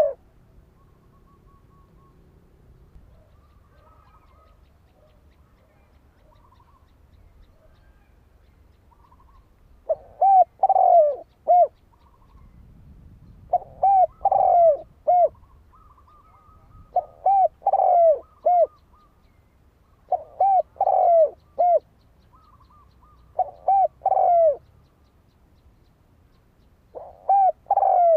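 Spotted dove cooing: phrases of three or four notes repeated about every three and a half seconds from about ten seconds in, used as a lure call to provoke a rival dove. Before that, only faint chirps from other birds.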